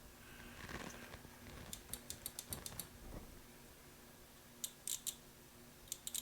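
Starter relay of a 1993 Yamaha Riva 125 scooter clicking as its blue-white trigger wire is touched to ground: a brief rustle, then faint, fast runs of clicks in short bursts.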